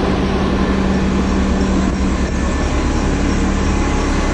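A vehicle engine running with a steady low rumble, with a steady hum over it that fades out about halfway through.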